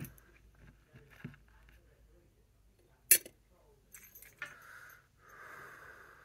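Loose plastic Lego pieces clicking against each other and the tabletop as they are searched through by hand, with one sharp click about three seconds in. A soft breathy hiss follows near the end.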